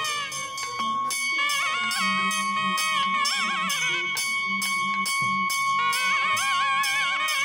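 Devotional music: a wavering melody over a steady ringing tone, with a regular beat of bell-like strikes.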